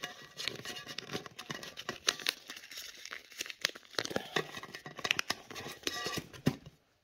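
A £20 banknote crinkling as it is folded and pushed through the slot of a savings tin: a dense run of paper crackles that stops about six and a half seconds in.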